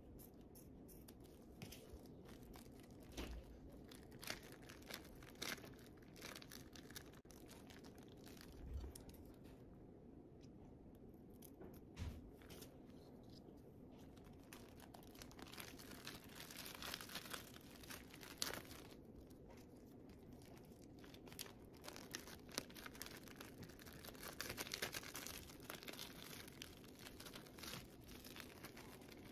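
Faint crinkling and rustling of thin clear plastic film being handled, with scattered small clicks and taps; the crinkling grows busier about halfway through and again near the end as the plastic is bunched up in the hands.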